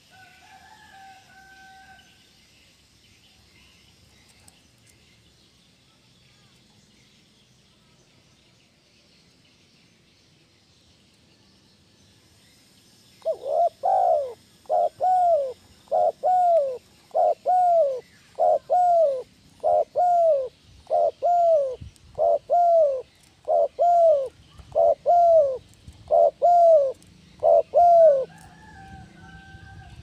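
Spotted dove cooing: after a quiet stretch, a loud run of about fifteen arched coos, roughly one a second, starting about halfway through and stopping near the end. Small birds chirp faintly and high in the background.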